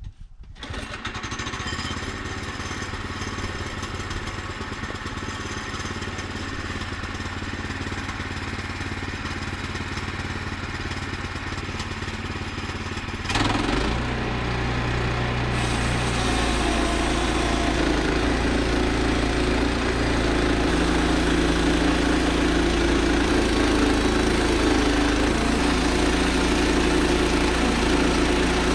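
Woodland Mills HM122 portable bandsaw sawmill's small gas engine running steadily. About halfway through it steps up to a louder, fuller running and holds there.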